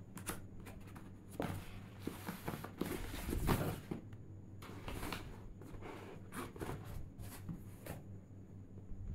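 A cardboard mailer being handled and a boxed tablet slid out of it: rustling, scraping and light taps of cardboard, loudest about three and a half seconds in.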